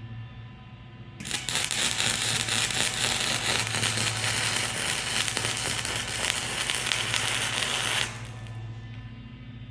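Electric arc welding on steel: over a steady hum, the arc strikes about a second in and crackles and hisses continuously for about seven seconds, then cuts off, leaving the hum.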